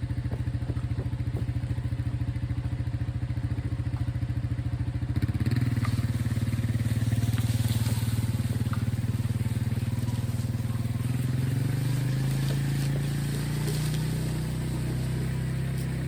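Four-wheeler (ATV) engine idling, then revving up about five seconds in and running under load as it tows a tree out of the water on a chain, rising a little in pitch about twelve seconds in.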